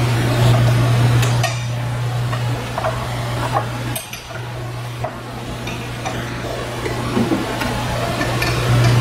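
A wrench clinking and knocking against the metal base of a large electric motor frame in scattered light strikes, over a steady low hum.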